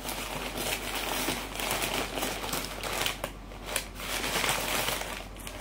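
Brown kraft packing paper crinkling and rustling as it is pulled out of a cardboard box, with a steady run of small crackles.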